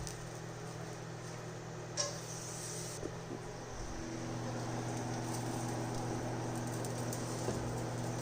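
Steady low electrical hum of an appliance fan, with a single click about two seconds in and a second, higher hum joining about four seconds in.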